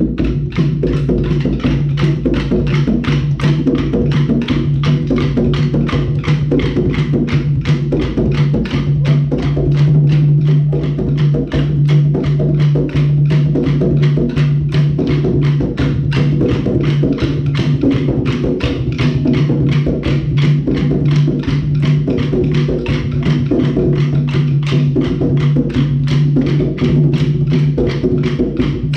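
Maculelê music: wooden sticks clacked together in a steady, fast rhythm over atabaque drumming.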